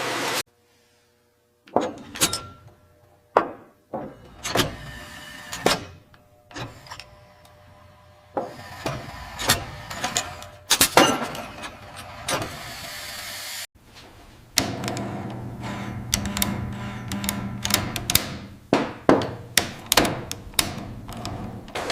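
Factory machinery clanking and knocking: a run of sharp metallic knocks at irregular spacing, over steadier machine noise that grows busier and more rapid in the later part. The sound breaks off abruptly a few times.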